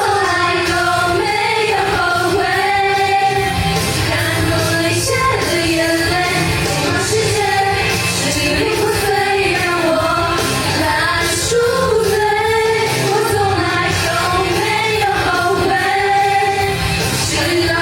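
A woman singing a pop ballad over instrumental backing, the melody held in long sung phrases.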